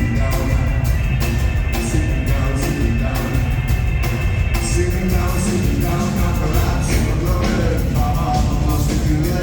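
Rock band playing live, with singing over a heavy bass line and drums.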